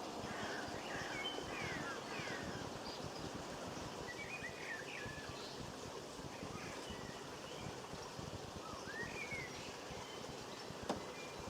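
Small birds chirping in short clusters of quick rising and falling calls over a steady outdoor background hiss, with a single sharp click near the end.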